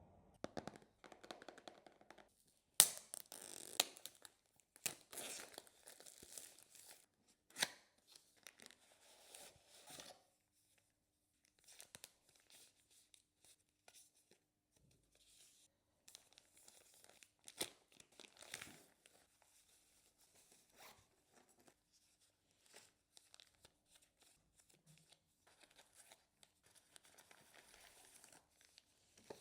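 Product packaging being opened by hand: scattered rustles, crinkles and short tears of plastic and paper wrapping, with a few sharper clicks and snaps. It is busiest in the first ten seconds, then mostly quiet with one more flurry later on.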